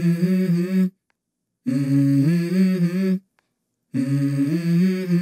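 Background music: a wordless hummed vocal melody in phrases about a second and a half long, stepping between a few low notes, with brief silences between the phrases.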